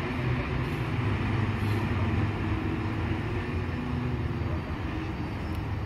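Empty flat wagons of a freight train rolling along the rails: a steady rumble of wheels on track.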